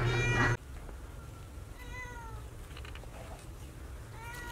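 Ginger-and-white domestic cat meowing: a loud meow that cuts off abruptly about half a second in, then two shorter, fainter meows, one around two seconds in and one near the end.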